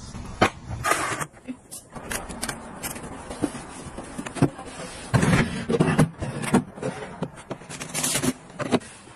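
Close handling sounds of plastic and fabric bathroom items: an irregular run of clicks, taps and rustles, with louder scuffing bursts about five seconds in and again near eight seconds.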